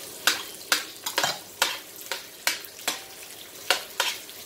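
Onion, garlic and ginger sizzling in hot canola oil in a pan as they sauté, with a utensil scraping and knocking against the pan about twice a second as they are stirred.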